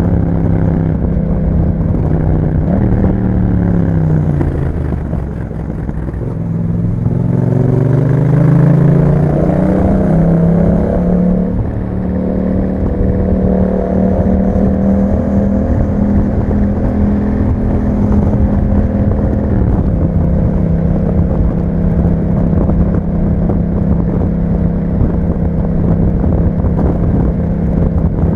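Yamaha MT-07's 689 cc parallel-twin engine running through an Akrapovic exhaust with a dB killer, heard from the bike while riding. The engine note falls about three to five seconds in, climbs steadily under acceleration, then settles into a steady cruise.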